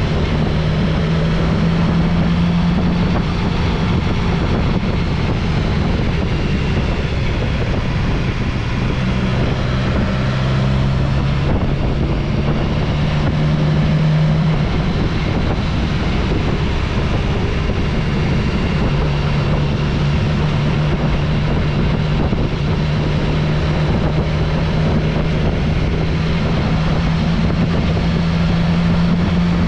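Motorcycle engine running under way, its low note holding steady and shifting pitch a few times as the speed changes, over steady wind and tyre noise.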